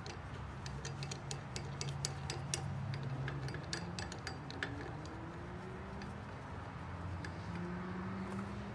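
Irregular light clicks and ticks as plastic knobs are screwed by hand onto the threaded ends of a steel roof rack's U-bolt clamps, with a low hum in the background that slowly rises in pitch.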